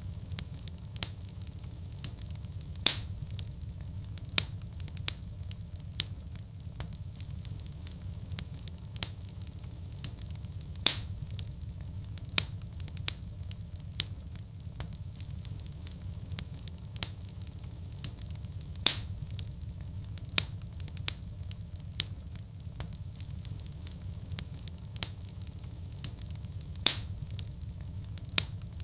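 Fireplace wood fire crackling over a steady low roar, with frequent small snaps and a louder pop about every eight seconds.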